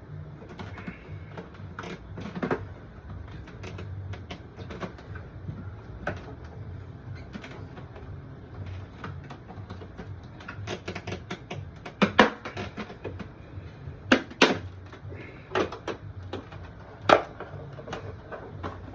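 Irregular hard plastic clicks and snaps as an aftermarket headlight's lens is pried away from its housing with flat screwdrivers, the heat-softened tabs letting go. The sharpest snaps come in a cluster in the second half.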